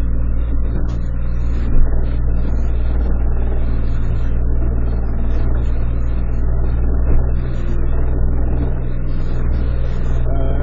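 Boat engine running steadily under way, a constant low drone. A sharp knock about two seconds in and a smaller one about seven seconds in.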